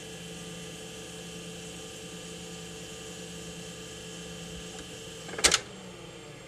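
Portable 1960s Philips-Norelco reel-to-reel tape recorder running, a steady mechanical hum with several constant tones. About five and a half seconds in, a piano key is pressed with a sharp clack, stopping the transport, and the hum dies away.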